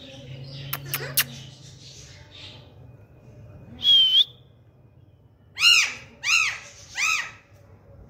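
Caged green parrot calling: a harsh squawk about halfway through, then three screeching calls in quick succession, each rising and falling in pitch. A few sharp ticks come about a second in.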